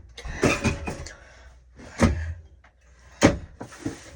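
Rummaging through stored things while searching: a sliding, rubbing noise and several sharp knocks and clatters as items and a door or drawer are moved, the loudest knock about three seconds in.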